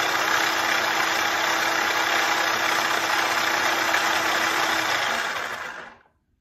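Oster mini food chopper's motor running steadily with its lid pressed down, whirring through a fruit mixture. It spins down and stops about five to six seconds in as the lid is released.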